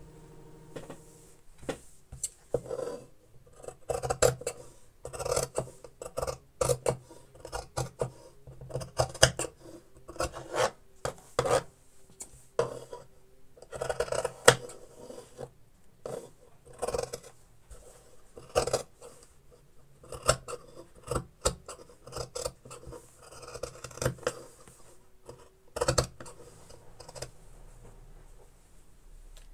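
Large fabric shears cutting through the layers of a quilted patchwork mat: a long run of irregular snips, with fabric rubbing and rustling between them, dying away near the end.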